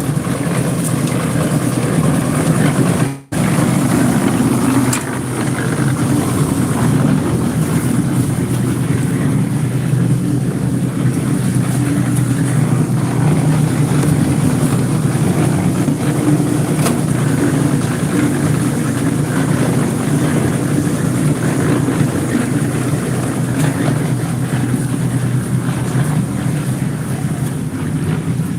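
Heavy engine running steadily at a construction site during a concrete pour, a constant low drone. It cuts out for an instant about three seconds in.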